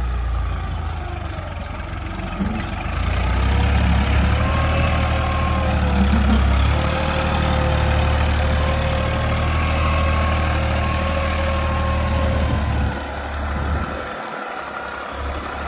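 New Holland 3032 tractor's diesel engine running under heavy load as it pulls a nine-tine cultivator through wet soil, with the wheels slipping. It is a steady low rumble that grows louder a few seconds in and eases near the end.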